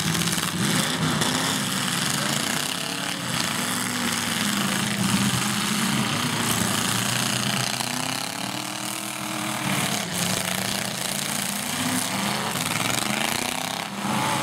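Several demolition derby car engines revving hard together, their pitch rising and falling as the cars accelerate and push, with a few knocks of car bodies hitting each other.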